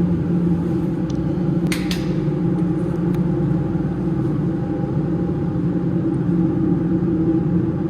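Steady low machinery hum with several held tones, filling the steel compartment below deck. About two seconds in, a couple of short metallic clanks, footsteps on the steel spiral staircase.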